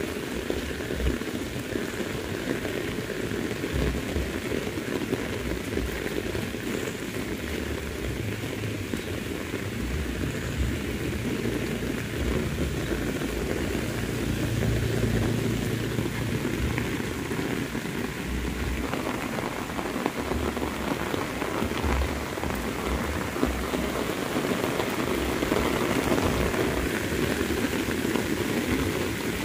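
Very heavy rain pouring down steadily, with irregular low thumps now and then.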